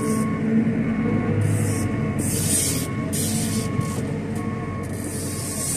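JCB telehandler's engine running and rising and falling in pitch as it works the hydraulics, heard from inside the cab. A warning alarm beeps steadily about every 0.7 seconds, and there are intermittent bursts of high hiss.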